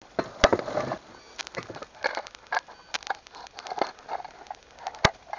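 Irregular sharp clicks and light knocks with some rustling, about a dozen in all, the loudest about half a second in and another at about five seconds: objects being moved about in an old wooden box hung with metal chains.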